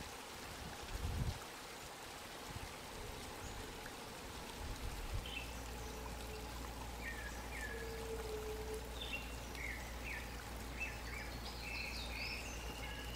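Quiet forest ambience: a steady hiss, with a brief low rumble about a second in, then small birds giving short chirps from about six seconds in and a long, slowly rising whistle near the end.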